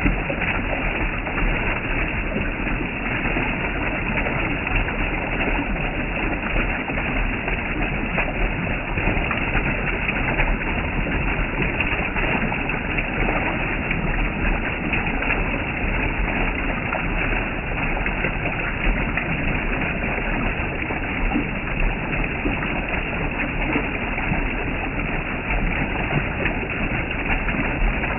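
Steady rushing water of a waterfall, an even, unbroken roar.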